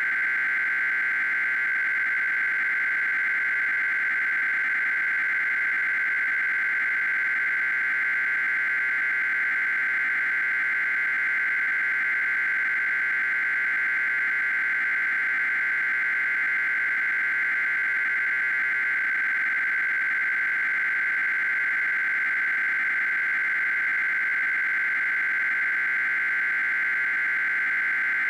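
Continuous electronic data tone from an Emergency Alert System encoder: an even, fast warble flicking between two high pitches, the two-tone shift signal of EAS SAME data, held without a break.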